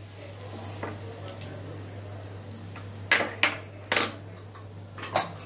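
A few sharp clinks of steel kitchen utensils and containers being handled, the loudest about three and four seconds in and another near the end, over a faint sizzle of bay leaves and whole spices frying in hot oil in a steel kadai.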